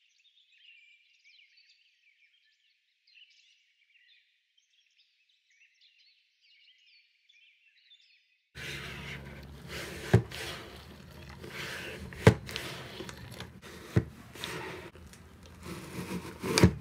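Faint high chirps for the first half. Then a flat microfiber mop is worked up and down through the wash and wring slot of its plastic bucket: water sloshing and splashing, with a sharp plastic knock about every two seconds.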